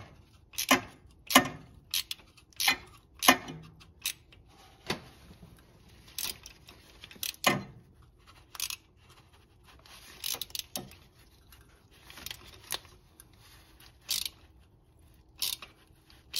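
3/8-drive hand ratchet turning a thread tap, on an extension, into a bolt hole in a Honda R18's aluminum engine block: sharp ratchet clicks about every second, a little quicker in the first few seconds, with faint scraping.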